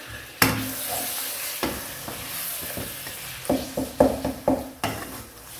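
Wooden spatula stirring mutton, onions and tomatoes in a wok, knocking against the pan, over the sizzle of frying. A sharp knock comes about half a second in and a quick run of knocks near the end.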